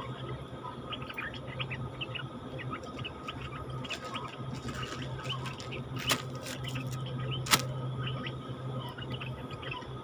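Stripe-throated bulbuls giving rapid, short chirping calls over a steady low hum, with two sharp clicks about six and seven and a half seconds in, the second the loudest.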